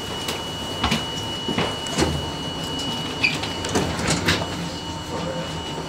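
New York City subway train heard from inside the car: a steady low rumble with a faint steady high tone, broken by several irregular sharp clanks and rattles.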